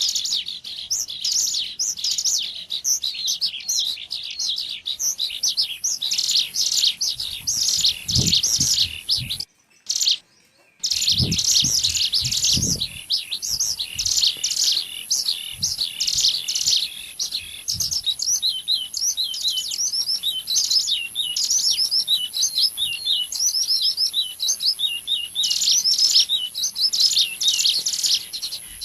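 Ciblek gunung (a mountain prinia) singing rapid, high chirps and trills nonstop, the lure call played to draw wild birds in. It cuts out abruptly for about a second and a half about nine seconds in, with a few low rumbles around the break.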